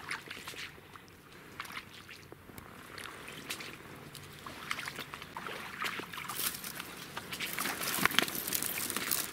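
Footsteps splashing and sloshing through shallow swamp water and wet leaf litter, with irregular crunching and rustling that grows louder toward the end as bare brush scrapes against clothing.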